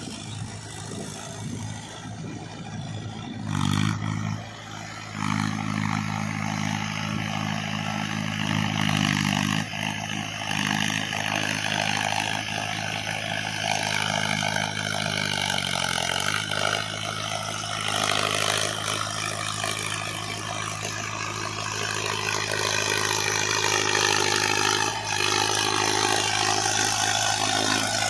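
Mahindra Arjun 555 tractor's diesel engine running steadily under load while its rear rotary tiller churns through flooded paddy mud. The engine note drops for a moment about halfway through.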